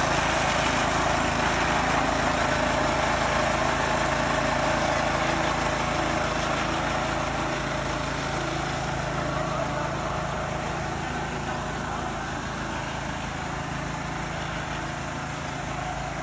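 Kawasaki TB70 grass cutter's small petrol engine running steadily, growing gradually quieter over the last several seconds.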